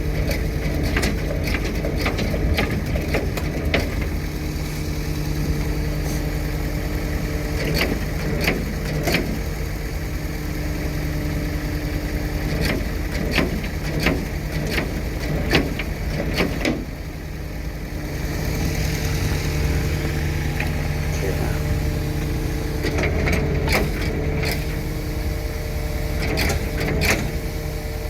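A vehicle engine idling steadily, with scattered clicks and knocks over it.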